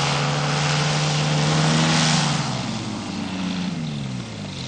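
Powered parachute's engine and pusher propeller running steadily, then falling in pitch and level from about halfway through as the craft comes in to land.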